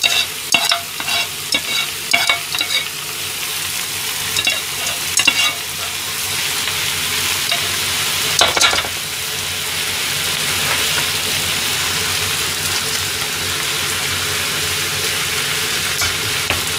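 Stir-fried udon, pork and vegetables sizzling in a wok. For the first few seconds a metal ladle scrapes and clinks against a skillet and the wok as the food is scraped across. There is a sharp clatter about eight and a half seconds in, then steady sizzling.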